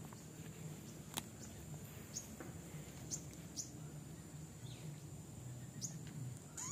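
Faint outdoor ambience: a steady, high-pitched insect drone with about half a dozen short, sharp bird chirps scattered through it.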